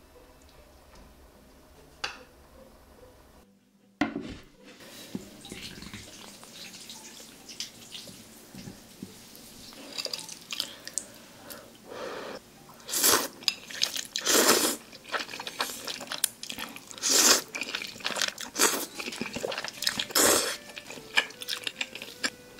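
A person slurping and chewing jjajang ramyeon (black-bean-sauce instant noodles) with close-up eating sounds. The second half has about six loud, short wet slurps.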